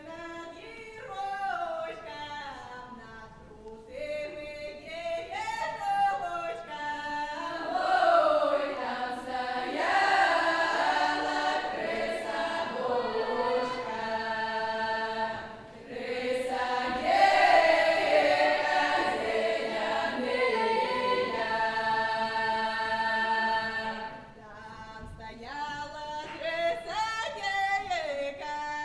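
Women's folk ensemble singing a traditional Kuban Cossack song a cappella. A lone voice leads the opening line, the full choir comes in about four seconds in, and near the end it thins out again to a few leading voices.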